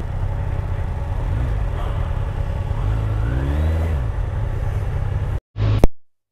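Motorcycle engine running at low speed, mixed with low wind and road rumble on the rider's camera microphone. It revs up with a rising whine about three seconds in, then the sound cuts off suddenly near the end.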